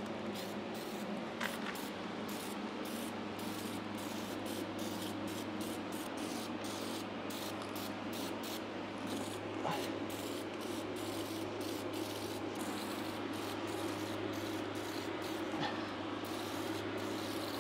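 Aerosol can of Easy-Off oven cleaner spraying in a steady hiss onto aluminium tubes, coating them to strip their red anodizing.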